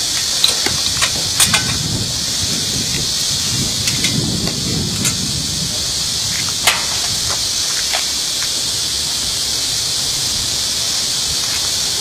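Steady high-pitched hiss, with a few scattered light clicks and knocks from hand tools tightening the muffler bolts.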